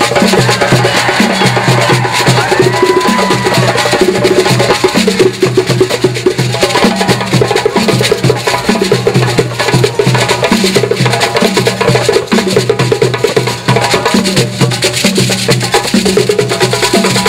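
West African drum ensemble playing live: djembe hand drums over deeper bass drums, beating a fast, steady, repeating rhythm.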